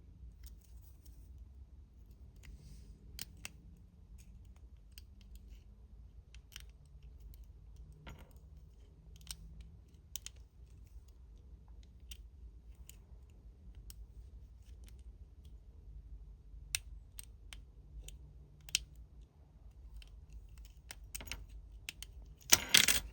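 Lock picking on a 72/40-style padlock: a BOG09 pick, its end used as a hook, scrapes faintly in the keyway and makes scattered sharp clicks as it works the pins. At the very end comes a louder metallic rattle as the padlock comes open.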